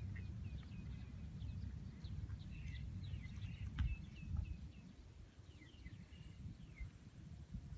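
Small birds chirping: many short, quick calls repeated over and over, over a steady low rumble, with one sharp click about four seconds in.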